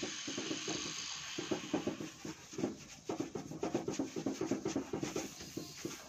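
A cloth rubbed hard back and forth over a stainless steel sheet, in quick, uneven strokes a few times a second. A hiss fades out in the first second or two.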